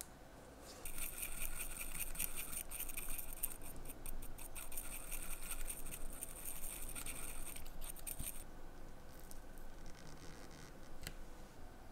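A steel needle tool stirring and scraping in a small ceramic mixing dish, working lume powder and cold espresso into a gritty paste. It gives a rapid, dry scratching that starts about a second in and stops around eight seconds in, followed by a couple of faint ticks.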